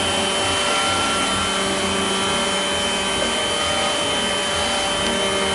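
Steady mechanical hum with an even rushing noise and several constant tones, like a fan or motor running without change.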